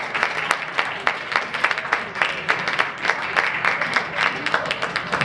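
Audience applauding: many hands clapping at a steady level.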